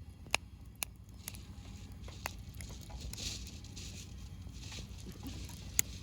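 Campfire crackling in a fire pit, with a few sharp pops at irregular intervals and a soft, uneven hiss.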